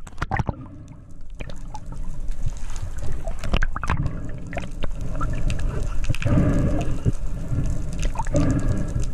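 Underwater sound picked up by a camera in its housing during a freediving descent: water gurgling and rushing past the housing, with a low rumble that swells about two-thirds of the way through, over scattered sharp clicks and crackles.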